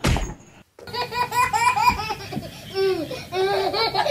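High-pitched laughter: a quick run of giggles starting about a second in, then a few longer falling laughing sounds. A short, loud burst of noise comes right at the start.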